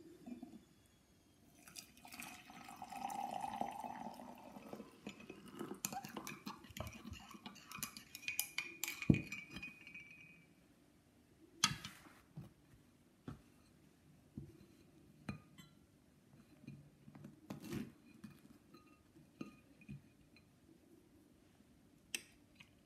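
Crockery and a table knife clinking as a scone is moved onto a plate and buttered: a busier stretch of light clatter in the first half, then single sharp clinks and knocks every second or two.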